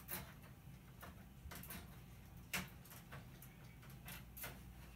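Scattered light clicks and taps at irregular intervals, with one sharper knock about two and a half seconds in, from the metal tabs and LED light bars of a flat-screen TV's backlight panel being pried and handled. A faint low hum runs underneath.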